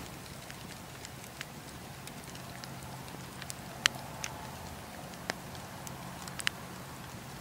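Wood campfire crackling: a steady hiss of burning logs with irregular sharp pops and snaps, the loudest about four seconds in.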